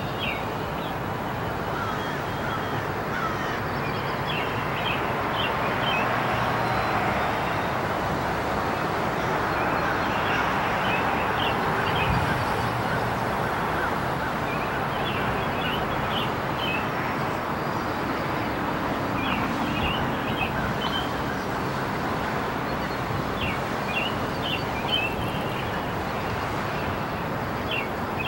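Outdoor ambience: a steady rush of background noise with birds calling in short runs of quick chirps every few seconds.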